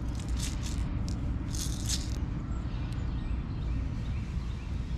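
Several sharp clicks and a short rattle of small hard objects in the first two seconds, over a steady low rumble.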